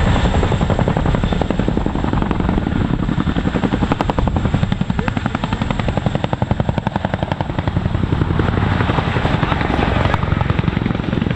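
Boeing CH-47 Chinook tandem-rotor helicopter flying low and slow past, its two rotors making a loud, rapid, steady blade chop that is most distinct in the middle.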